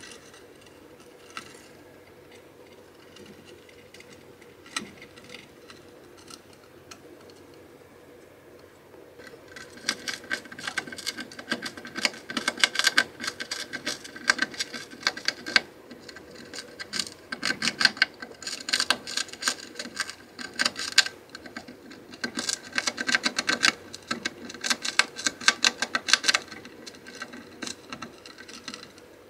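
Djungarian hamster gnawing at the edge of its hideout: quick dry clicking and scraping in spells, starting about a third of the way in and stopping shortly before the end.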